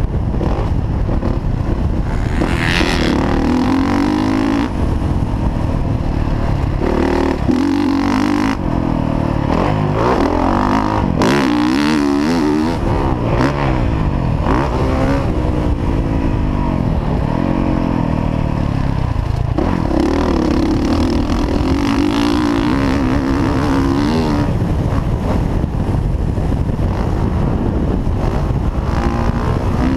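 Dirt bike engine revving up and backing off again and again as the bike is ridden around a motocross track, its pitch rising and falling with brief drops between pulls. Heard from a helmet-mounted camera with wind rushing on the microphone.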